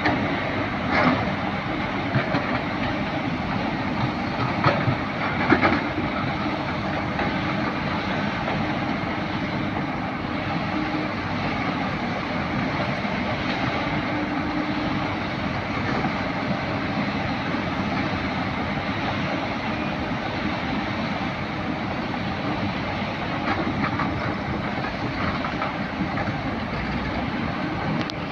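Excavator working: its diesel engine and hydraulics running steadily, with a few sharp metallic knocks in the first six seconds.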